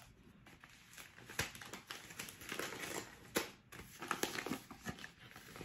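Paper gift wrapping rustling and crinkling as a package is unwrapped by hand, with a couple of sharper crackles.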